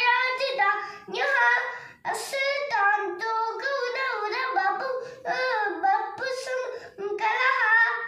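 A young boy singing a devotional song solo and unaccompanied, in sustained phrases with short breaks for breath.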